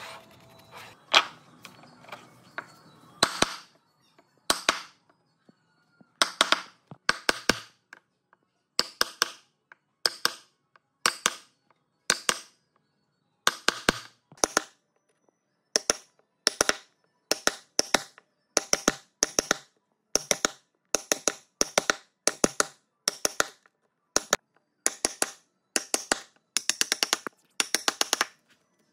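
Hammering on wood: sharp strikes in quick groups of several, about one group a second, with short pauses between.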